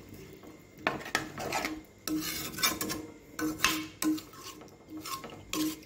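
A ladle stirring thin pumpkin curry gravy in a kadai, scraping against the pan in a series of irregular strokes.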